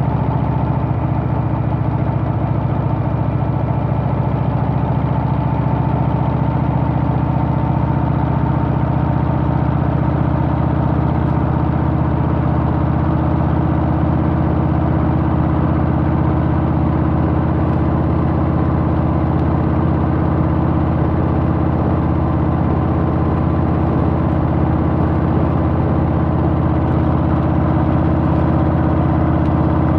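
Harley-Davidson Softail's Milwaukee-Eight V-twin engine running at a steady speed, with no rise or fall in pitch.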